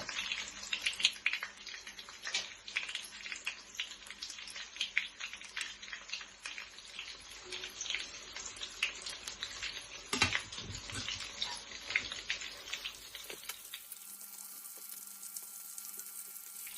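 Breaded chicken nuggets shallow-frying in hot oil, with a steady crackling and popping. There is a louder knock about ten seconds in. In the last few seconds the crackle gives way to a fainter, smoother hiss.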